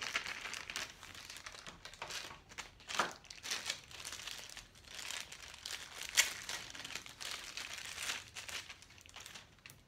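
Thin clear plastic bag crinkling and rustling as it is handled and opened, in irregular crackles, with sharper crackles about three and six seconds in.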